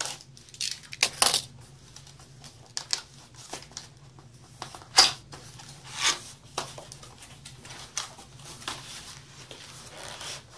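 Cardboard shipping box being torn open and handled by hand: irregular tearing, scraping and rustling of cardboard, with a few sharper rips, the loudest about a second in and about five seconds in.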